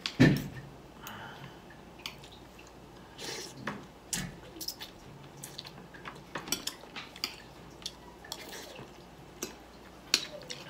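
Spoon and fork clicking and scraping against a ceramic plate as rice and chicken are scooped up, with the mouth sounds of eating in between. A sharper knock just after the start is the loudest sound.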